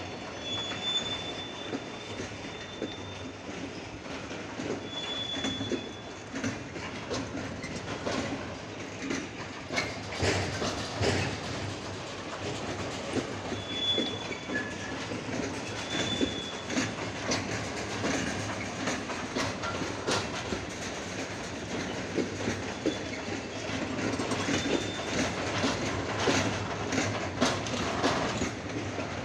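Freight train of covered hopper wagons rolling past, its wheels clattering over the rail joints, with several short, high wheel squeals now and then.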